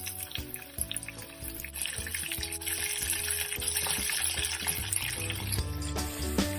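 Batter-coated chicken pieces deep-frying in a pot of hot oil: a steady sizzle that grows louder about two seconds in, under background music.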